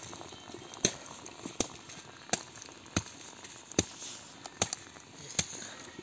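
Freshly boiled water running from a samovar's tap into a metal teapot, a steady splashing hiss, with sharp ticks about every three-quarters of a second.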